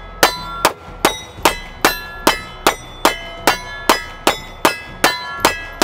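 Glock G19X 9mm pistol firing a steady rapid string of shots, about two and a half a second, with a short ringing tone trailing each shot.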